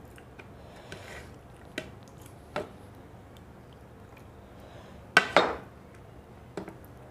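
Dishes clinking during a meal: scattered sharp taps of plate and tableware, with two louder knocks in quick succession about five seconds in.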